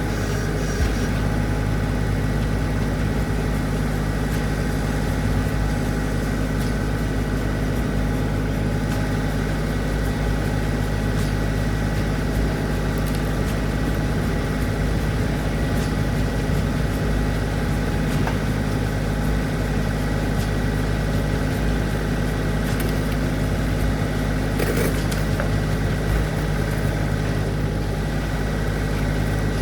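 An engine running steadily at an even idle, with no change in speed.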